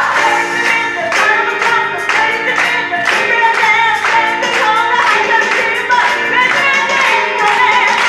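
Gospel choir singing an upbeat song, the singers clapping their hands in a steady rhythm.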